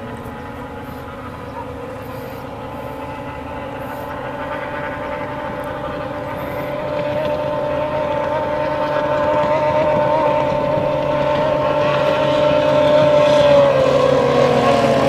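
Racing hydroplane engines running flat out, a high steady whine that grows louder as a boat approaches, dipping slightly in pitch near the end as it passes.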